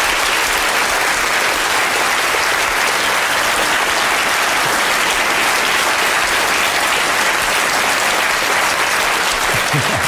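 Large audience applauding steadily in a lecture theatre, easing off just before the end.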